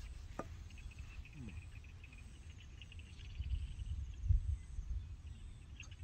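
Insects chirring steadily and faintly over a low rumble that swells and is loudest a little past the middle; a single light click about half a second in.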